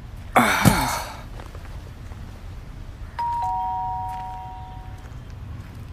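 Two-tone doorbell chime, a higher note then a lower one (ding-dong), ringing once about three seconds in and fading over a couple of seconds. A short, loud burst of noise comes just before it, near the start.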